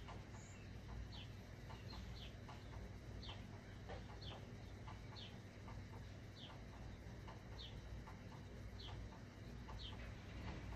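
Black Sharpie marker squeaking on an inflated balloon as it draws, short high squeaks about once a second over a low steady hum.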